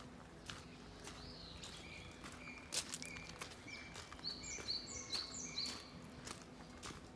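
Footsteps crunching on loose gravel, about two steps a second, with a bird singing: a run of short repeated notes, then four higher notes in quick succession about two-thirds of the way through.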